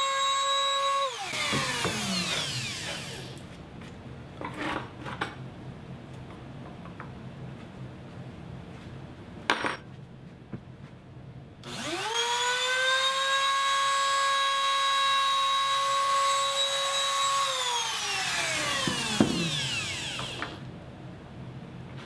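Compact trim router running at full speed, then switched off and spinning down over a couple of seconds. After a few light knocks it is started again, comes up to speed, runs for about five seconds and is switched off to spin down once more. It is routing shallow mortises for door strike plates.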